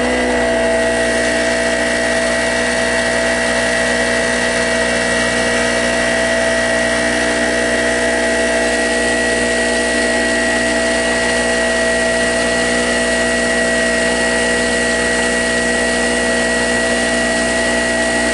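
Harbor Freight Storm Cat two-stroke portable generator running steadily at constant speed, a continuous engine drone with a high whine over it.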